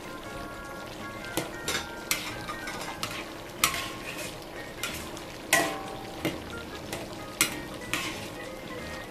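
Metal ladle stirring and scraping a saucy curry stir-fry in a large aluminium wok, with about ten sharp, irregular clanks of the ladle against the pan. Under them runs the steady sizzle of the simmering curry.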